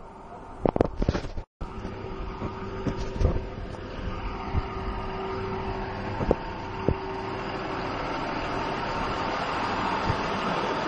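Diesel engine of a motor grader running with a steady note, growing gradually louder as the machine comes closer. A few knocks from handling or wind on the microphone in the first couple of seconds.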